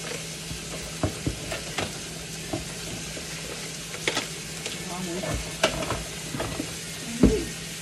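Onions frying in a pan on a gas burner, a steady sizzling hiss. Over it, a cardboard box and plastic packaging crackle and crinkle in short scattered bursts as they are handled, with a louder thump near the end.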